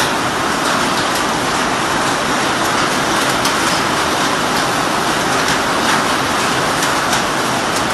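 Torrential rain pouring down onto a concrete courtyard: a dense, steady hiss of falling and splashing drops, with scattered sharper drop hits.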